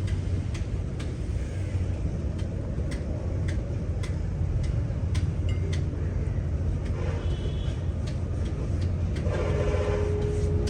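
A motor-driven machine running with a steady low hum, with a sharp click repeating about twice a second. A short held tone comes in near the end.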